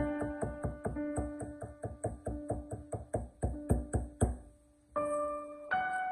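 Steel cleaver chopping cooked mugwort on a wooden chopping board in quick, even strokes, about five a second, stopping about four seconds in. Background piano music plays throughout.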